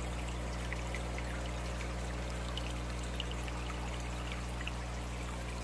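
Aquarium water trickling and splashing steadily from the tank's filter return, with faint scattered drips, over a steady low hum.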